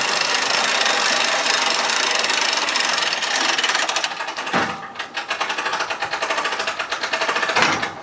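Several hand-crank winches on a portable boat lift being cranked together, their ratchets making a fast, dense clatter of clicks as the boat is raised. The clatter breaks off briefly about four and a half seconds in, then goes on as a thinner rapid clicking until a louder clack near the end.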